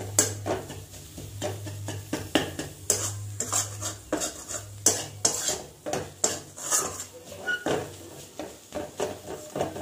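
Long metal spatula scraping and knocking against a metal kadai as a dry prawn-and-spice mixture is stirred and turned, in quick, irregular strokes.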